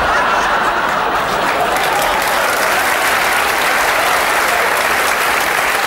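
Live theatre audience applauding, loud and steady, in response to a joke's punchline.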